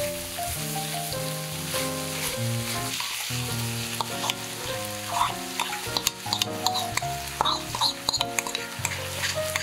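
Pork and vegetables sizzling in a hot stainless steel frying pan, with a wooden spatula stirring and scraping and a cluster of clicks and taps about six to eight seconds in. Light background music with a stepping melody plays along.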